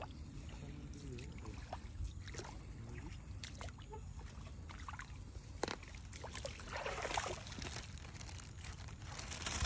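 Faint trickling and dripping of water with scattered clicks of handling, then a thin plastic bag rustling from about seven seconds in as it is opened and something is dropped in.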